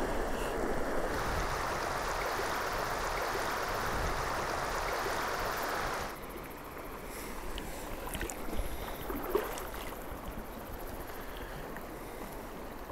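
Steady rush of a shallow mountain river's current. About six seconds in it drops suddenly to a softer flow with a few faint ticks.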